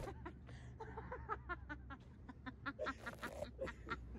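Faint laughter: a run of short, quick ha-ha pulses, a little louder toward the end.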